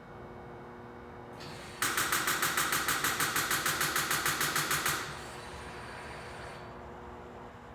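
Chevrolet Cobalt SS starter solenoid chattering, a rapid run of about six clicks a second for about three seconds, as the key is turned: the battery, dead and still on jumper cables, is too weak to crank the engine.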